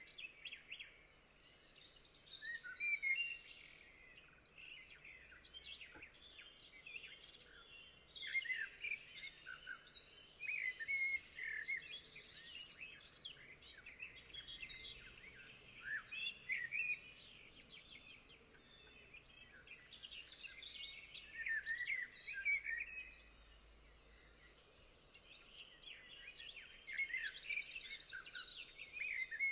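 Small songbirds chirping and calling, several at once, with short chirps, trills and quick runs of repeated notes coming in bursts between quieter spells.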